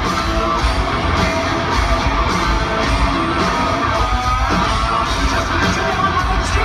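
Hard rock band playing live in an arena, heard from the audience: distorted electric guitars over a steady drum beat, with vocals and crowd noise mixed in.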